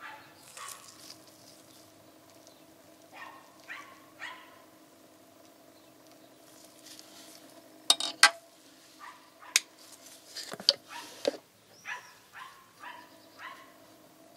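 Metal parts of an oil film strength tester being handled: soft scrapes, then a run of sharp metallic clicks and knocks about two thirds of the way in as the test roller and holder are fitted. A faint steady hum underlies the start and the end.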